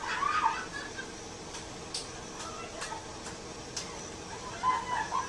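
Brief muffled, high-pitched voices, heard at the start and again near the end, with a few faint clicks in between over a faint steady hum.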